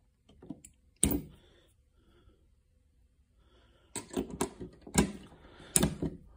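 Gearwrench 3/8-drive semi-deep chrome sockets clicking and clinking as they are handled and pulled off a plastic socket rail: one sharp click about a second in, then a run of clicks in the second half.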